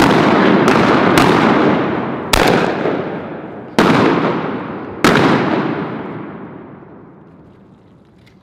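A volley of shotgun blasts from several hunters firing on incoming ducks: about six shots in five seconds, each trailing off in a long echo that fades away over the last few seconds.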